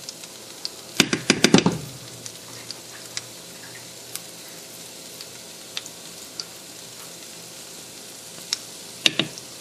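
Quiet, steady frying sizzle from the stovetop pans, with a quick run of clacks about a second in and a few light taps later as a measuring spoon and silicone spatula knock against the skillet while tomato paste is scraped into the vegetables.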